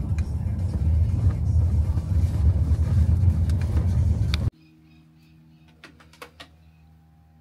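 Tractor engines rumbling as the machines drive past, with the low end dominant. The rumble cuts off suddenly about four and a half seconds in, leaving a faint steady hum and a few light clicks.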